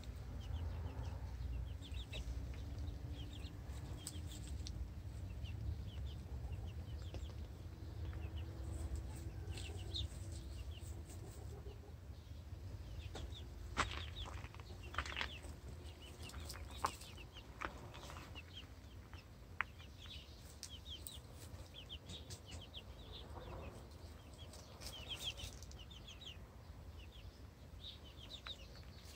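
Young chickens peeping and softly clucking as they forage, short high chirps scattered throughout, with a few sharp clicks in the middle.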